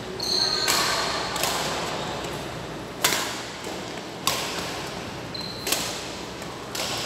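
Badminton rally: racquets striking the shuttlecock about six times, at uneven intervals of a second or so, each hit a sharp crack that echoes in the hall. Two short high squeaks, typical of shoes on the court floor, come near the start and about two-thirds of the way through.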